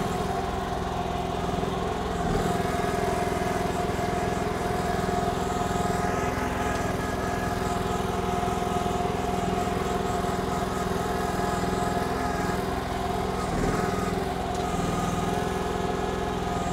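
Briggs & Stratton gas engine of a KYMRON XH14 mini excavator running steadily, its note shifting briefly twice.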